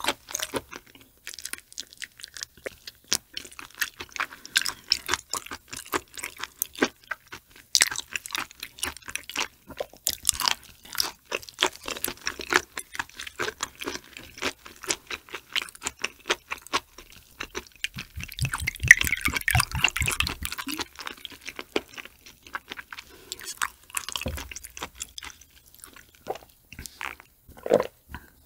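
Close-miked chewing of raw shrimp sashimi with flying fish roe: wet, sticky mouth sounds with many small crackles, denser and louder for a couple of seconds past the middle. Near the end there is a sip from a small glass.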